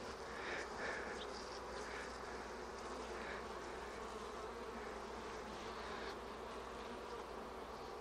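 Honeybees buzzing steadily around an opened hive.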